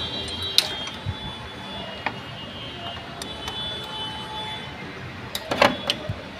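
Scattered metal clicks and knocks as a Honda Aviator scooter's carburettor is unbolted from its two 8 mm nuts and worked free by hand, with a short clatter of several knocks a little after five seconds in.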